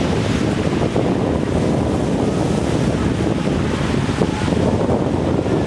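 Wind buffeting the microphone over the steady wash of sea waves breaking on a shingle beach.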